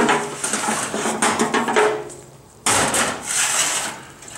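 Hands working on a kerosene bullet heater's metal parts while hooking up its air line: irregular clattering and knocks, then a sudden louder scraping noise about two and a half seconds in.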